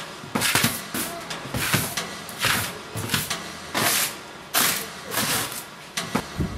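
A bristle broom sweeping a wooden plank floor: brisk short strokes, about two a second.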